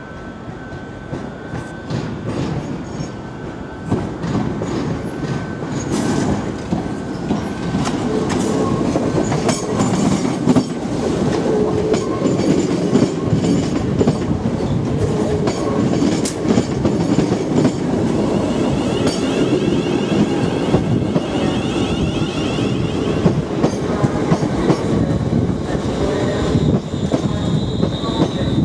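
ScotRail Class 314 electric multiple unit running slowly into the platform, its wheels clicking over the points and rail joints, getting louder as it comes close. A thin high wheel squeal sounds at times.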